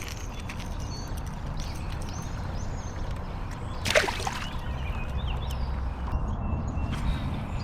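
Water sloshing against a kayak over a steady low background rumble, with one short sharp sound about four seconds in.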